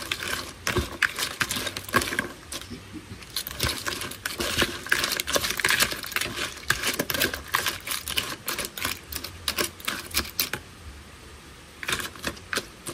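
Chopsticks and a metal spoon tossing salted ba khía crab claws in a plastic bowl: rapid, irregular clicking and clattering of hard shells and utensils. It stops about ten seconds in, then a few more clicks come near the end.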